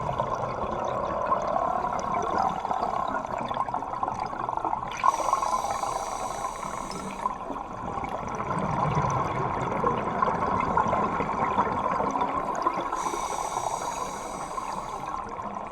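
Scuba diver's breathing recorded underwater: a steady bubbling water wash, with two spells of hissing from the regulator about eight seconds apart.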